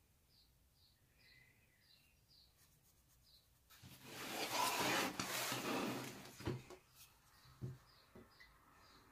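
A small bird chirping faintly over and over, two or three short chirps a second. About four seconds in comes a loud rustling of the sketchbook being handled and shifted on the table, lasting a few seconds and ending in a couple of knocks.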